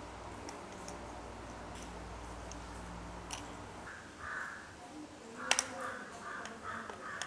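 Small clicks and rubbing of plastic parts as the Mi 360 security camera's housing and gear ring are handled and fitted, over a steady low hum that stops about four seconds in. After that, a run of short harsh calls repeats about three times a second, with the loudest sharp click about five and a half seconds in.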